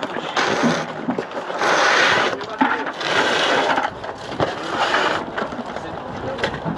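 Digging rubble: a run of rough scraping strokes, about four in a few seconds, with scattered knocks of debris.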